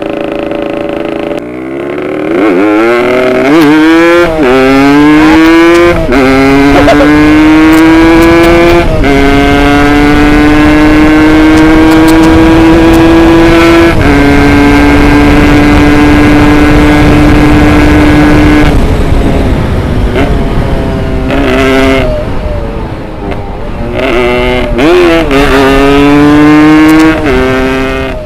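Yamaha RX Special 115 two-stroke single-cylinder motorcycle engine, tuned for power, accelerating up through the gears, its pitch climbing and dropping at each shift, then holding a steady cruise. It eases off about two-thirds of the way through and revs up again in several short bursts near the end.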